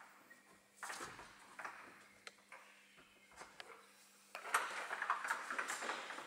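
A climbing rope is handled at a belay, pulled through a belay device, with scattered light clicks and clinks of metal gear. From about four seconds in there is a louder, busier stretch of rustling and clinking.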